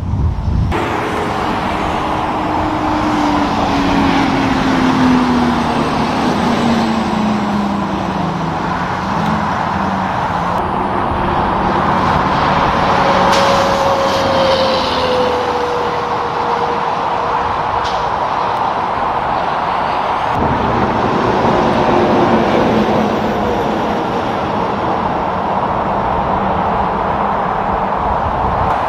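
Heavy diesel trucks passing at highway speed: a steady roar of tyres on the road, with a truck engine's drone falling in pitch as it goes by twice, once early and once around the middle.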